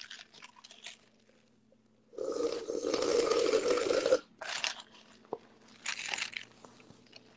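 Rustling and scraping of a phone being handled, its microphone rubbing against cloth or hands. The loudest part is a dense two-second rustle about two seconds in, followed by a couple of shorter scrapes and a single sharp click.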